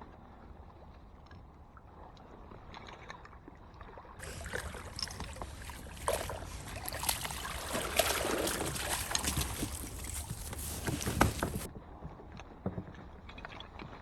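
Water splashing and sloshing as something moves through shallow marsh water. It is faint at first, grows much louder about four seconds in with many small splashes, and drops back near the end.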